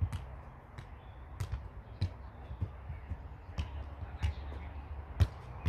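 A football being kicked over and over, a sharp thud of foot on ball about every half second to a second.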